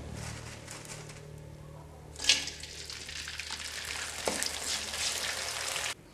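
Crackers (kerupuk) going into hot oil in a wok and frying: a sudden burst of sizzling starts about two seconds in and carries on steadily until it cuts off abruptly near the end. Before it there is only a low steady hum.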